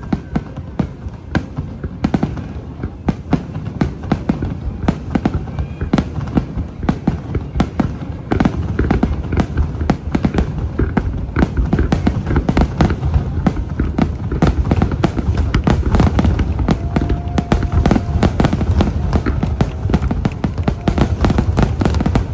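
Nagaoka aerial fireworks exploding in rapid, overlapping succession: a dense run of cracks and booms with a rumbling low end. It grows thicker and louder about eight seconds in.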